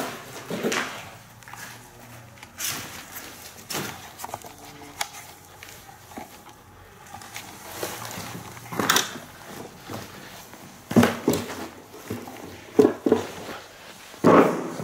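Irregular footsteps and scuffing over a rubble-strewn floor, with several louder crunches or knocks.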